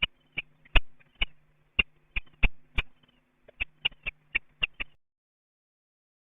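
A series of about fifteen sharp, short clicks at irregular spacing over a faint steady hum, cutting off abruptly about five seconds in.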